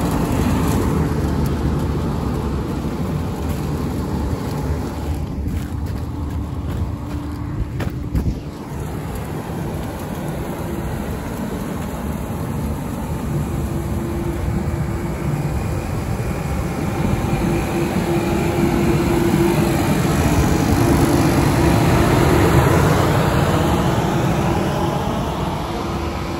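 Grain dryer machinery running steadily: a loud continuous rumble with a steady hum that grows louder in the second half and eases near the end, with a brief knock about eight seconds in.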